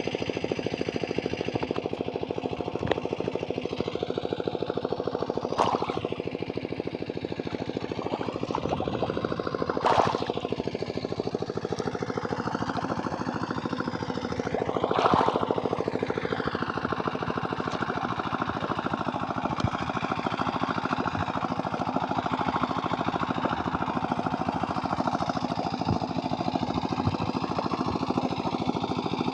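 A steady, rapid mechanical rattle, like an engine running, with three louder noisy bursts along the way.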